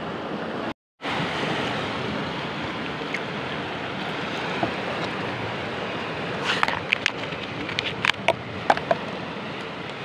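Sea surf washing against a rocky shore, a steady rush that drops out for a moment about a second in. From about six and a half seconds in, a scatter of sharp clicks and taps rides over it, from a plastic cup being handled close to the microphone.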